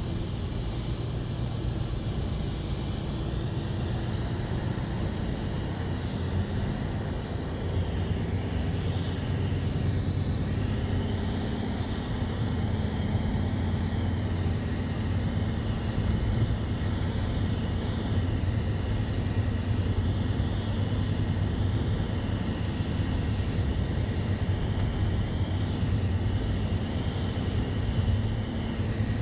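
Steady engine and road noise of a moving vehicle heard from inside the cabin, getting slightly louder about a third of the way in.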